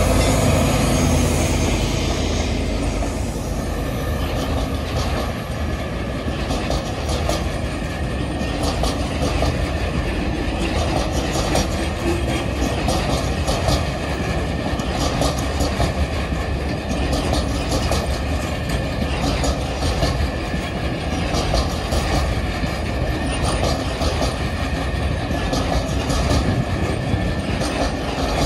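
A freight train behind two Dv12 diesel locomotives passes close by. The locomotives' engines are loudest at the start and fade over the first few seconds. Then a long string of empty log wagons rolls past, with a steady, rhythmic clickety-clack of wheels over the rail joints.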